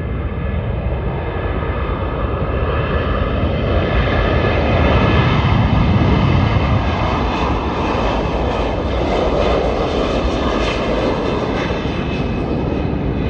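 Airbus Beluga XL's two Rolls-Royce Trent 700 turbofan engines at take-off thrust as the aircraft rolls past on the runway and lifts off. The jet noise is loud and rushing, with a steady whine over it, grows loudest about halfway through as it passes, and eases slightly as it climbs away.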